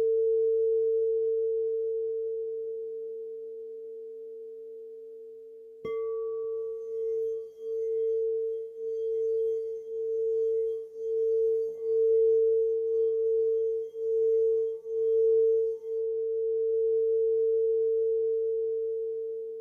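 Singing bowl ringing with one low, steady tone that slowly fades. It is struck again about six seconds in, after which the tone swells and dips about once a second for some ten seconds, then holds steady and dies away near the end.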